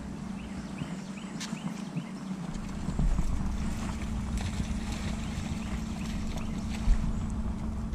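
Bass boat's electric trolling motor humming steadily. From about three seconds in, a low rumble of deck and water noise as the hook is set and a bass is fought at the boat, with one sharp knock or splash near the end.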